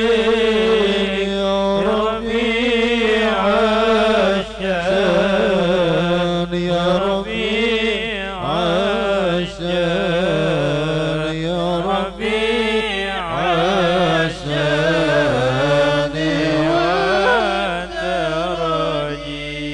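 Men singing an Arabic sholawat, led by a voice on a microphone: long, drawn-out phrases, heavily ornamented with wavering glides in pitch, with only brief breaths between them.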